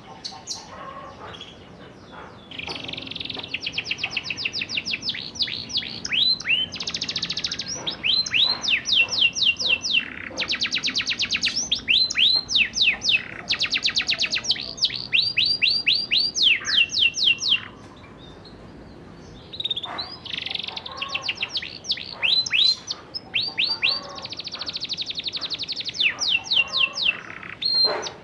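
Young domestic canary singing its rolling song: long trills of rapidly repeated high notes and downward-sweeping whistles, in runs of several seconds. The song starts about two seconds in and breaks off for about two seconds past the middle before resuming.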